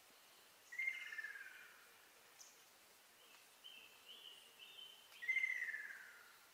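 Ruddy kingfisher giving its rolling, descending 'kyororo' trill twice, each about a second long: once about a second in and again near the end. A few short, higher notes come between the two trills.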